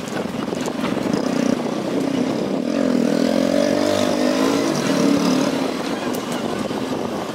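Motorcycle engine running on the move, its pitch wavering up and down in the middle, over a steady rush of road and air noise.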